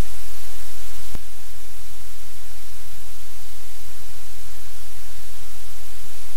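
Steady loud hiss like static over a low electrical hum, with a single click about a second in.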